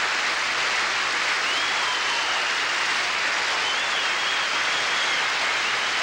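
Studio audience applauding, a steady dense clapping with a faint high whistle now and then.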